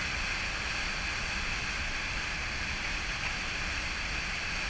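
Whitewater rapids rushing steadily, the churning water of a river falling through a rocky drop.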